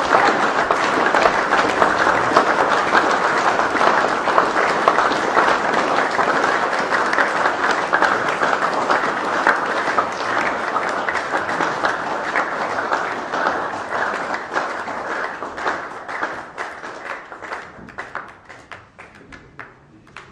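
Applause from an audience, many people clapping at once, dying away over the last few seconds to a few scattered claps.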